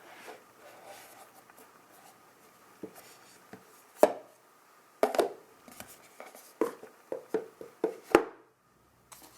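Hands handling the Apple Watch box's packaging: scattered taps, clicks and light rustles of cardboard and plastic, with a quicker run of clicks toward the end.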